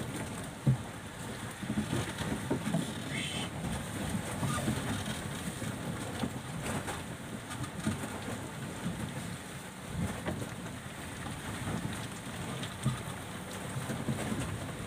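Strong wind and rough sea around a small wooden fishing boat: a steady rushing, broken by short knocks and thumps of waves against the hull.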